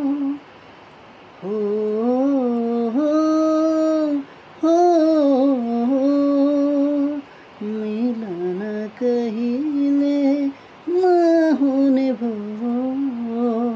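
A man singing a slow melody without words, holding long notes that bend up and down, in phrases of one to three seconds with short pauses for breath between them.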